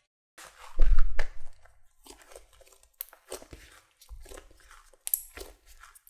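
Risen bread dough being folded and pressed by hand on a silicone baking mat to knock out its gas bubbles: soft sticky squishing and peeling in irregular bursts. The heaviest press comes about a second in.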